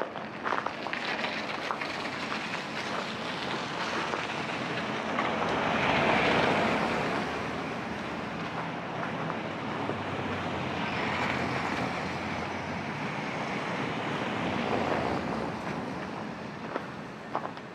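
Road traffic passing on the snowy street: a rushing tyre-and-engine noise that swells and fades several times, loudest about six seconds in, covering the footsteps.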